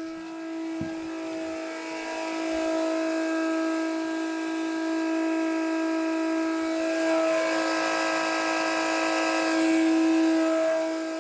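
Milwaukee M18 compact transfer pump running, its motor and impeller giving a steady high whine while it pumps water.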